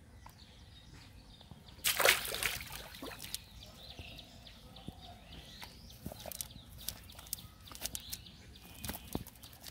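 Hands working fish out of a wet cast net on mud: scattered rustles and small wet clicks, with one loud wet slap about two seconds in.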